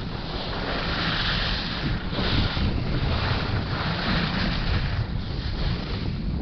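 Wind buffeting the microphone of a camera moving fast downhill, over the hiss of skis carving across packed snow that swells and dips with the turns.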